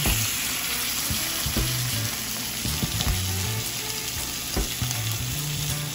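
Salmon fillets searing skin side down in browned butter in a stainless steel frying pan: a steady sizzle with a few light clicks.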